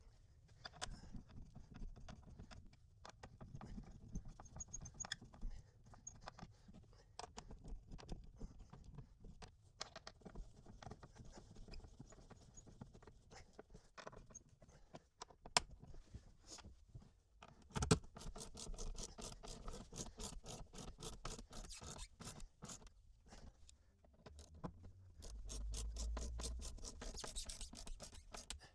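Scraping and handling noises of hardware being fitted into the cubby mounts, then from a little past halfway a long run of rapid, evenly spaced clicks as the fasteners are worked in.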